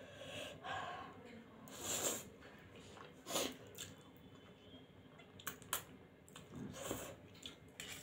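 Eating spicy instant noodles: slurping and wet chewing in several short bursts, the loudest about two seconds in.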